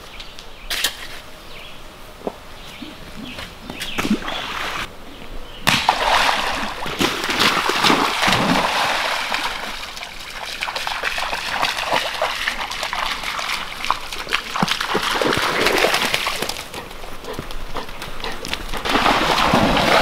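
Dog running and splashing through shallow muddy pond water. The splashing sets in about six seconds in after a quieter stretch with a few knocks, goes on continuously, eases briefly and picks up again near the end.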